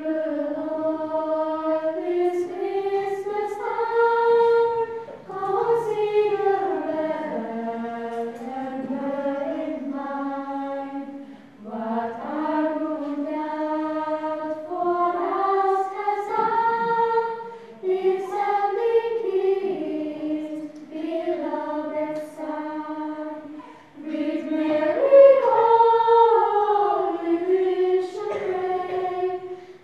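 Girls' choir singing a melody together, in phrases of about six seconds with short breaks between them.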